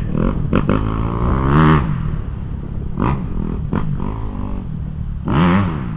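Kawasaki KX250F single-cylinder four-stroke motocross bike engine revving up and falling back several times as it is ridden round a dirt track.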